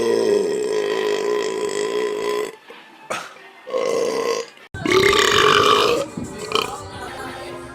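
People belching loudly: one long, steady burp held for over two seconds, then two short ones. After an abrupt cut, another loud burp comes about five seconds in, its pitch wavering, followed by fainter sounds.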